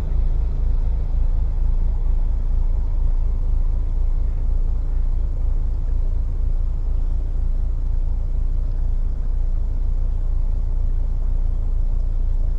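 Narrowboat's diesel engine running steadily at cruising speed, a low even rumble with a fast regular pulse.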